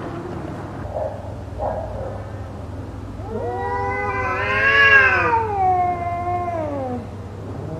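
Cat's fighting yowl: short faint cries, then one long drawn-out caterwaul from about three seconds in that rises in pitch and then slides down, with another call starting at the very end.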